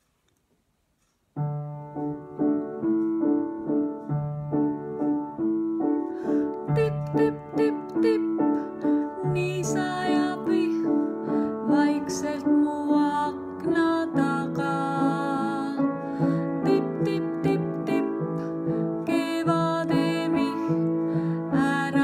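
A woman singing an Estonian children's lullaby to piano accompaniment. The piano starts about a second in, and her voice joins a few seconds later.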